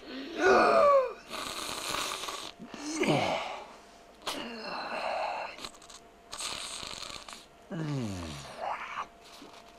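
A person's voice making sick-monster noises: a groan falling in pitch, then a run of loud, raspy, wheezing breaths, and near the end another long groan sliding down very low.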